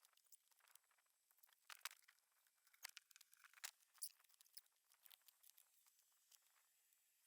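Faint, scattered clicks and light rustling of hands handling PC case parts.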